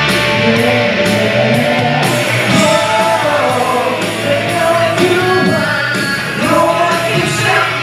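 Rock song performed live, with a singer on a handheld microphone over loud rock accompaniment, heard through a theatre's sound system.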